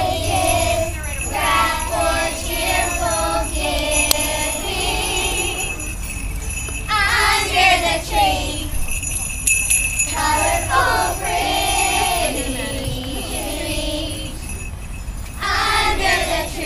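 Handheld jingle bells shaken steadily by a group of young children, who sing along in phrases with short breaks between them.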